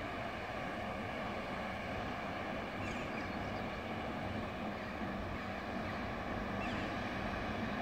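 Steady low hum of a distant Pesa Dart ED161 electric multiple unit at the station platform, with two faint short high chirps about three and seven seconds in.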